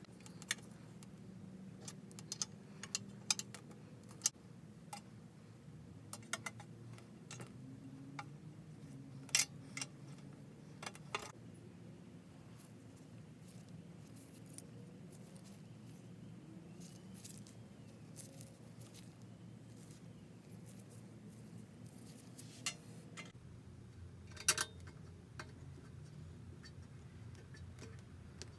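Scattered sharp metallic clicks and taps of locking pliers and small metal fittings being handled while fitting parts on a live steam model locomotive, over a low steady hum. The clicks come thickly for the first dozen seconds, then a few more about two-thirds of the way through.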